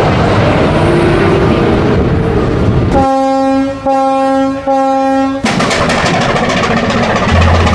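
Sea King helicopter passing low overhead with rotor and wind noise, then three short blasts of a boat's horn about three seconds in, each under a second long, before the rushing harbour noise returns.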